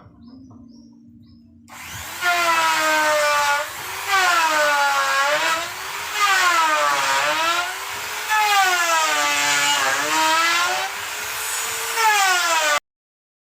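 Electric motor of a wood profiling machine (router) running loudly, its pitch rising and falling in slow waves about every two seconds. It starts about two seconds in and cuts off suddenly near the end.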